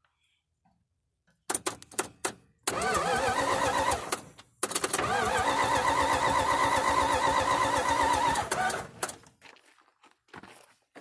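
A few sharp clicks, then a starter motor cranking an old V8 engine in two bursts, a short one and then a longer one of about four seconds. The cranking speed wavers evenly with the compression strokes, and the engine does not catch before the starter stops.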